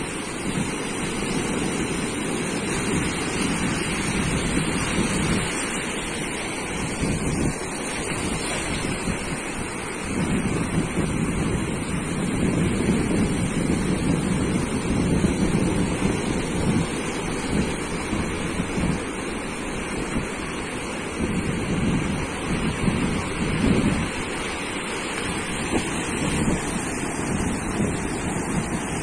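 Sea surf washing continuously onto a beach, swelling and easing slowly, with wind buffeting the microphone.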